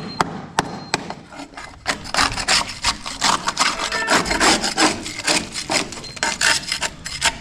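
Rapid rough scraping and rasping as crumbling wall compound is picked and scraped off a rusted metal window sill, coming in about two seconds in after a few light clicks.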